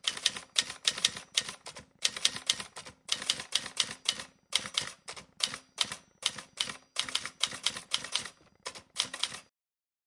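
Typing clatter of quick key strikes, about four or five a second, in short runs with brief pauses between them. It stops abruptly near the end.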